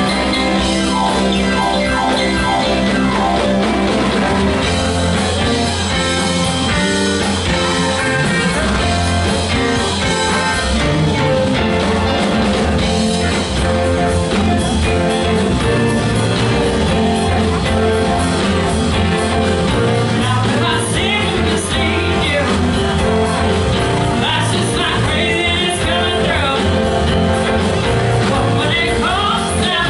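Live rock band playing with electric guitars, electric bass, drums and keyboards, with singing. The low end grows heavier about four seconds in.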